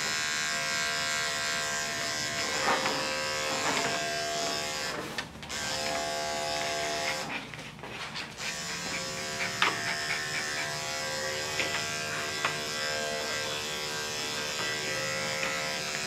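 Electric dog-grooming clippers running with a steady buzz while trimming a small dog's coat, cutting out briefly twice, about five and eight seconds in.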